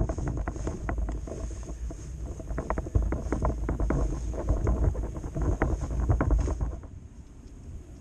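Loaded fishing tackle barrow being wheeled over rough grass: a low rumble with an irregular clatter of gear knocking together, and wind buffeting the microphone. The clatter dies away near the end.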